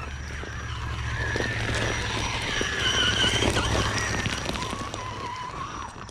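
Electric 1/10-scale RC rock crawler driving over loose rock: its motor whine rises and falls with the throttle while stones crunch and clatter under the tyres, loudest about three seconds in.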